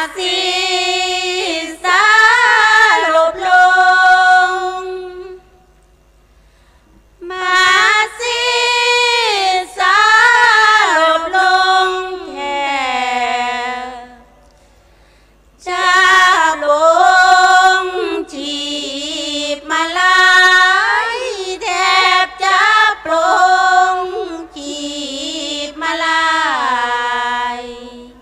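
Women's voices singing Thai Buddhist sarabhanya verse unaccompanied, into microphones. The melody is sung in three long, gliding phrases with two short breaks, about five and fourteen seconds in.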